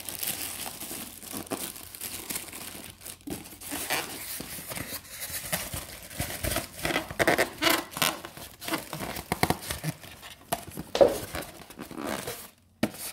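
Plastic and cardboard packaging being handled while unboxed, crinkling and rustling irregularly, with a louder sharp crackle near the end.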